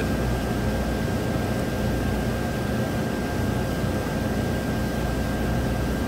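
A GM Vortec 5.7 V8 engine idling steadily, with a faint thin high tone held over it.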